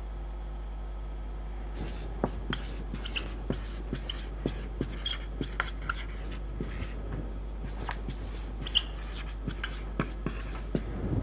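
Marker pen writing on a whiteboard: a run of quick, irregular taps and short squeaks as letters are written, starting about two seconds in, over a steady low hum.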